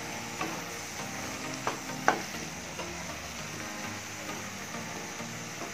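Fried okra sizzling in a pan with tomato and onion masala while a wooden spatula stirs it. A few sharp clicks of the spatula against the pan, the loudest about two seconds in.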